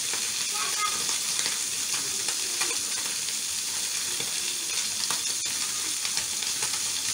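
Whole pabda fish shallow-frying in hot oil in a pan: a steady sizzle with scattered small crackles.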